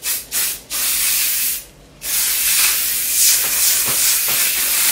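Aerosol hairspray can spraying in hissing bursts: a short puff, a spray of about a second, then a longer steady spray of about three seconds.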